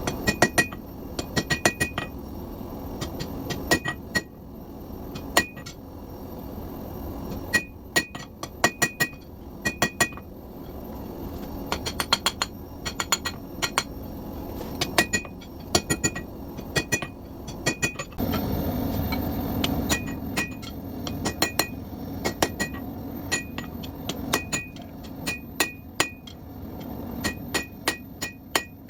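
Hand hammer striking hot steel on an anvil in quick runs of blows with short pauses, each blow ringing with a clear metallic ping: a blacksmith forging out the beard of a dragon head. About two-thirds of the way in, a steady rushing noise comes in under the blows.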